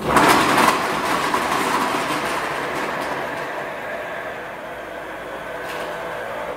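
Countertop kitchen robot's blade running at maximum power, chopping frozen banana pieces with protein powder in its steel jug: a loud, clattering whirr, loudest in the first second and settling a little lower after. It cuts off suddenly near the end.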